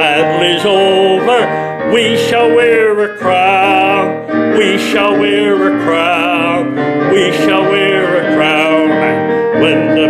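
Hymn music: piano accompaniment with held, wavering sung notes.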